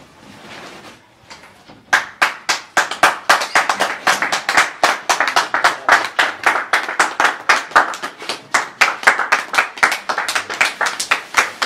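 Hands clapping in a quick, steady rhythm, starting about two seconds in.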